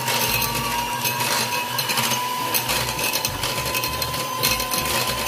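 Panasonic electric hand mixer running steadily, its beaters whisking eggs in a glass bowl. A steady motor whine that rises very slightly in pitch.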